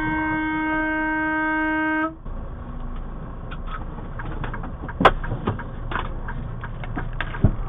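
A vehicle horn sounds one steady, unbroken chord and cuts off suddenly about two seconds in. After it come scattered clicks and knocks, the loudest a sharp knock about five seconds in and another near the end.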